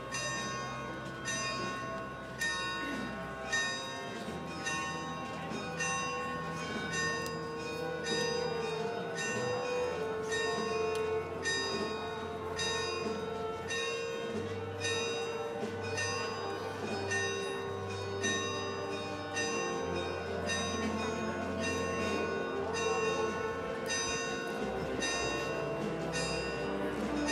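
A procession band playing a march: bright bell-like chimes struck on a steady beat over sustained low bass notes that change every few seconds.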